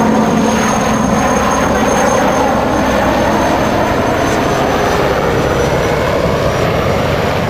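Military transport helicopter in flight: a steady rotor and turbine noise, with a faint high whine that slowly drops in pitch.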